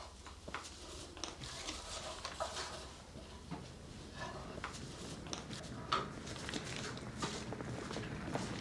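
Crayons scraping and tapping on paper over a wooden table, with light rustles and handling taps as the paper is moved, over a low steady room hum.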